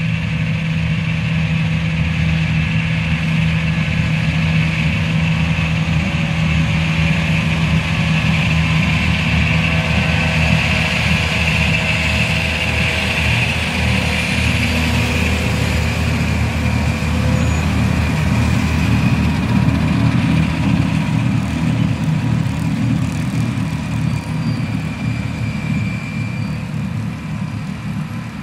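Massey Ferguson 9980 self-propelled windrower running steadily as it cuts Sudan grass, with a constant engine drone and a higher whine over it. It grows louder as the machine passes close, then fades somewhat as it moves away near the end.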